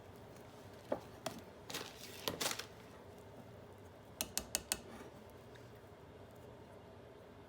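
A utensil clinking and scraping against a mixing bowl while stirring brownie batter: scattered taps in the first few seconds, then four quick clinks about four seconds in.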